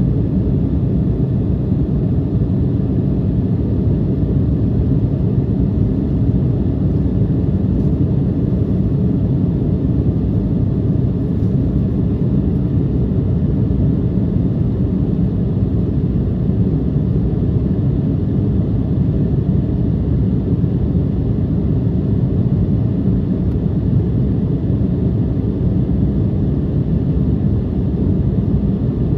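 Steady low rumble of an Embraer 175 airliner in flight, its twin GE CF34-8E turbofans and the airflow heard from inside the passenger cabin.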